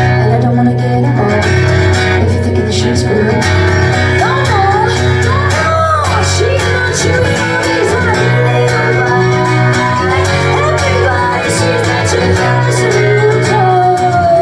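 Live band playing a loud, steady rock song with guitars and a bass line, and a voice singing over it.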